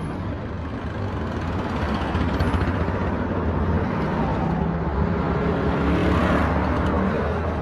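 Street traffic noise: a motor vehicle's engine running close by with a steady low rumble, swelling slightly about six seconds in as it passes.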